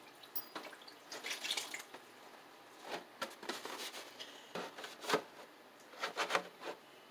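Water being poured over beef bones in a pot, heard as a series of short splashes and drips with quiet gaps between them.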